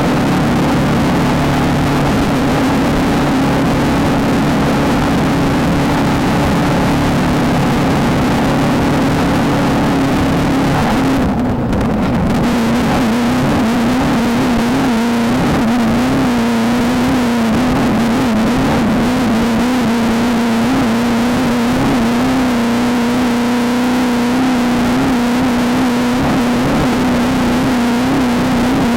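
Off-road race vehicle engine running hard at a steady pace, over a dense rush of drivetrain and terrain noise. About eleven seconds in it briefly eases off, then runs on with its pitch wavering slightly.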